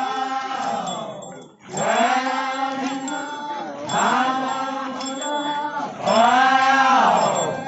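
Group of dancers chanting together in unison, a folk-dance chant sung in about four long phrases that each rise and then fall in pitch, with a brief break about one and a half seconds in.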